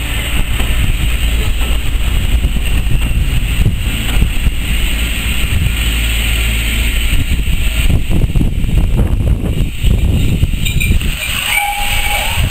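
Passenger coaches of a passing train rolling by close at hand: a steady, loud rumble of wheels on the rails.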